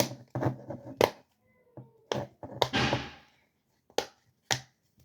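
Silicone pop-it fidget toy bubbles being pressed in, giving several sharp, unevenly spaced pops, with a brief rustle of handling near the middle.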